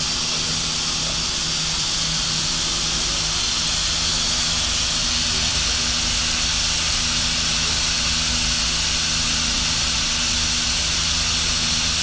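Pressurised water spray hissing steadily from an overhead nozzle as bundles of tobacco leaf are moistened under it, conditioning the leaf so it does not break in stemming. A steady low machine hum runs beneath the hiss.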